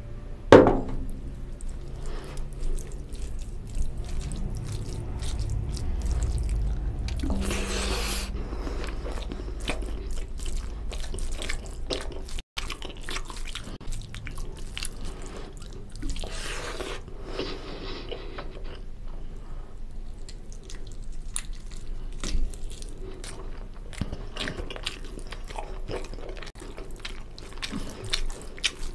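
Bare hand mixing basmati rice with mutton curry gravy on a steel plate: wet squishing and squelching with many small clicks of fingers on the metal. A sharp knock near the start, and two longer rustles, about 8 and 16 seconds in.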